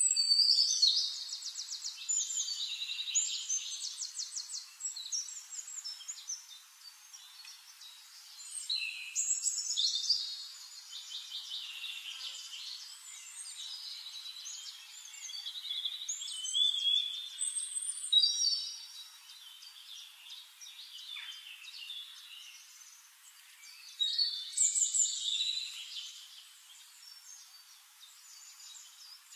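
Birdsong: high chirps and rapid trills, in four louder bursts, one at the start, one about nine seconds in, one around seventeen seconds and one near twenty-five seconds, with quieter chirping between.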